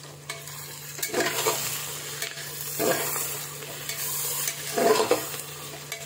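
Sliced onions and ginger-garlic paste sizzling in hot mustard oil in an aluminium pressure cooker, stirred with a metal spatula that scrapes across the pot in a few separate strokes. This is the stage where the ginger-garlic paste is fried into the browned onions.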